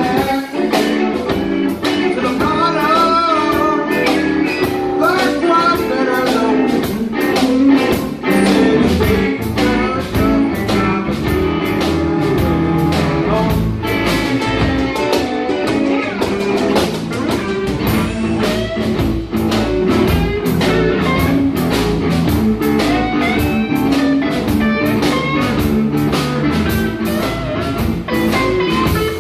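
Live band playing a blues number: guitar lines over bass and a steady drum beat.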